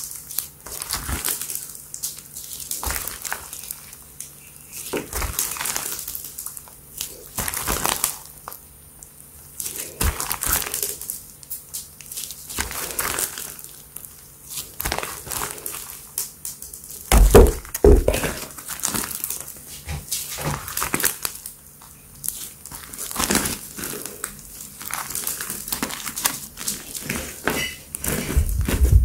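Thick pink slime with small beads mixed in being stretched, folded and squeezed by hand: wet squelching and crackling in irregular bursts about every second. A heavier thump comes about seventeen seconds in.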